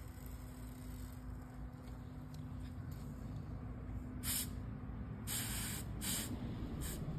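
Aerosol spray-paint can let off in four short hissing bursts in the last three seconds, the nozzle pressed lightly so the paint spits out in specks for stars.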